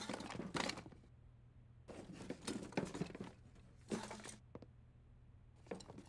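Faint rustling and knocking of things being moved about, the sound of rummaging through stored belongings, coming in a few short irregular bursts.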